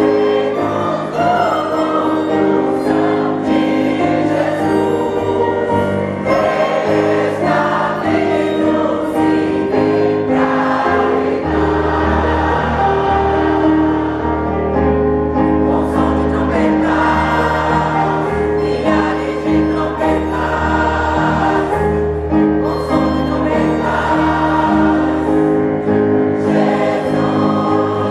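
Choir singing a Christian hymn in parts, with a deep sustained bass note entering about twelve seconds in and holding until near the end.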